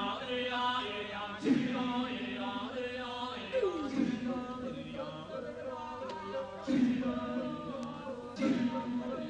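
Voices chanting on a low held note with rich overtones above. Each new phrase opens with a downward slide in pitch, four times, every two to three seconds.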